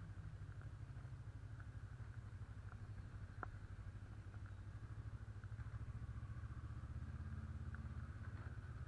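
Honda CB500's parallel-twin engine running at low revs as the motorcycle rides slowly, a steady low engine note that grows a little louder about six seconds in. A single sharp click is heard about three and a half seconds in.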